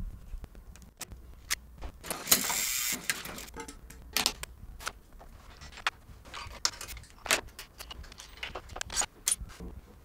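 Close-up bicycle workshop sounds in quick succession: metal clicks, clinks and knocks of a chain, components and hand tools being handled and fitted, with one longer, louder burst about two seconds in.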